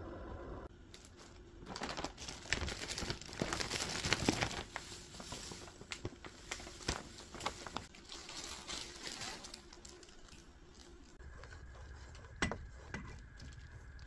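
Plastic bag crinkling and rustling for several seconds while sugar is handled out of it into a mug. Near the end, two sharp knocks over a low steady hum.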